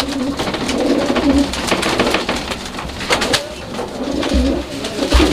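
Domestic pigeons cooing in a small indoor loft, with many sharp clicks and taps over the cooing.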